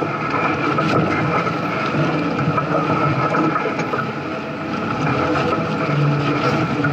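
Off-road 4x4 crawling over rocky ground: its engine and drivetrain run steadily, with scattered crackles of the tires working over rocks.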